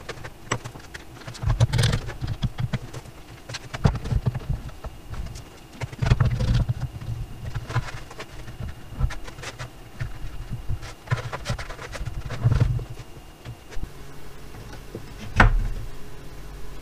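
Irregular knocks, clicks and rustles of boards and one-handed bar clamps being handled and set on a wooden workbench during a glue-up, with a rag wiping. The loudest knock comes near the end.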